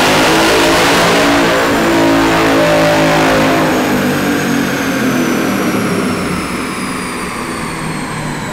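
Ford Mustang Mach 1's 5.0-litre V8 running on a chassis dyno, very loud at first, then winding down after the pull as the revs and a high whine fall away together.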